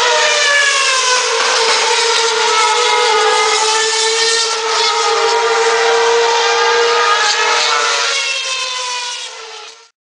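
Several racing cars' engines at high revs, their pitches sliding up and down as they accelerate and change gear, with one steady held note under them. The sound fades out near the end.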